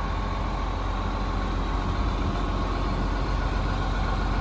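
Case CX330 excavator's diesel engine idling steadily with a low hum. It sounds to be running really well.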